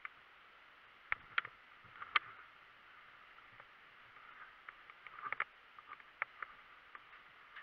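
Faint, irregular clicks and knocks over a steady low hiss, with a few sharper ones about a second in and a quick cluster about five seconds in.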